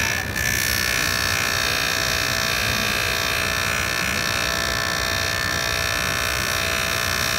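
A JOOLTOOL polishing system's spinning burnishing wheel grinding against a stainless steel Rolex bracelet link, a steady whirring hiss with a high whine, as the last of a deep scratch is taken out.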